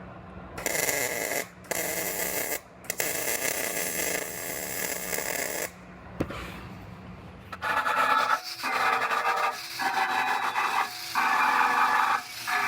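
Body-shop tools at work on a vehicle frame: a harsh, crackling hiss in several runs broken by short pauses, then an air tool whining in short bursts in the second half.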